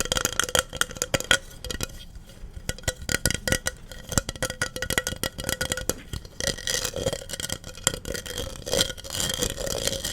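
Rapid, irregular tapping and clicking on hard objects, with light clinks, as an ASMR tapping trigger; it thins out for a moment about two seconds in, then picks up again.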